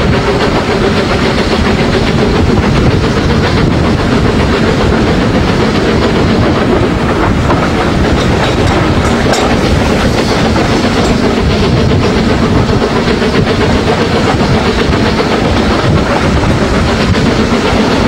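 Steam-hauled train running along the line: a loud, steady rumble of wheels clattering on the rails, with hiss of steam.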